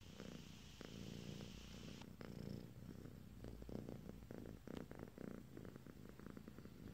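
Domestic cat purring quietly in a steady low rumble, with brief rustling around the middle as it shifts and tucks its head down.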